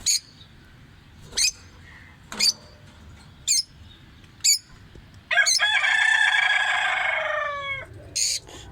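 A bird giving short sharp chirps about once a second, then one long crowing call of about two and a half seconds that drops in pitch at the end, followed by another chirp.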